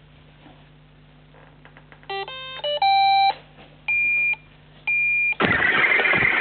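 Roomba robot vacuum playing a short electronic start-up tune about two seconds in, then two single high beeps. About five seconds in, its vacuum motor and brushes start with a loud, steady mechanical noise.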